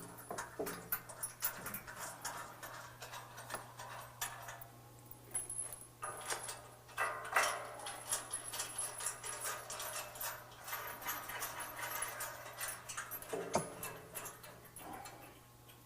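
Scattered light metallic clicks and rattles of bolts and hand tools as the bumper shell's supplied bolts are threaded into the winch tray's nuts, over a steady low hum.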